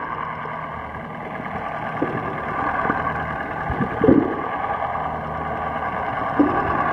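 Underwater ambience picked up by a submerged camera: a steady muffled rushing noise with a low hum, and a few dull knocks about two, four and six and a half seconds in.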